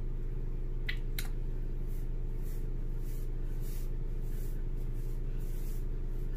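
Fingertips rubbing and massaging through coarse natural hair worked with detangling conditioner: soft, repeated rubbing strokes from about two seconds in, over a steady low hum. Two light clicks come about a second in.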